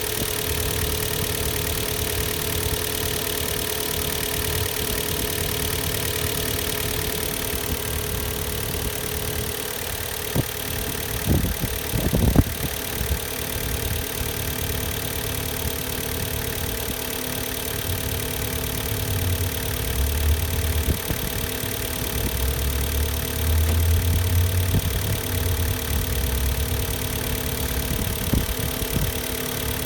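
Hyundai/Kia G4KD 2.0-litre four-cylinder petrol engine idling steadily while warming up. A few sharp knocks or clicks come about 11 to 12 seconds in.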